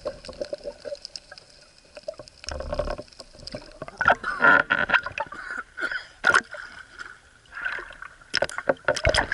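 Water splashing and gurgling in irregular surges, with many sharp clicks and knocks.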